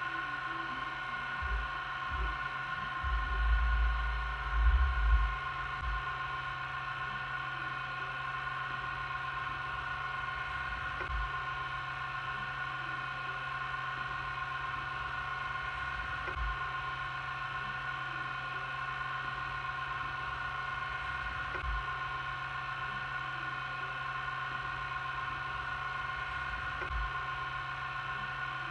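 VCR running with a steady motor hum and whine. Heavy low clunks from the tape mechanism come in the first few seconds, followed by a few faint knocks.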